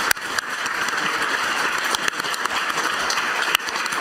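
Steady applause from a roomful of people clapping their hands, greeting the end of a speech.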